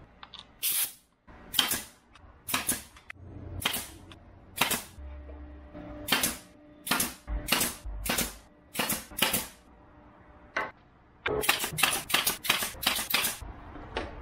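Pneumatic brad nailer firing nails into pine 1x2 boards, a series of sharp shots at irregular spacing, with a quick run of them near the end.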